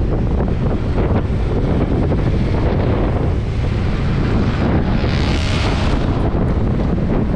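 Heavy wind buffeting on a GoPro's microphone while travelling by road: a steady, loud low rumble, with a hiss that swells and fades about five seconds in.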